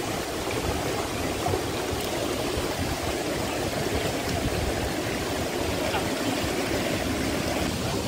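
Mountain stream water rushing steadily over rocks.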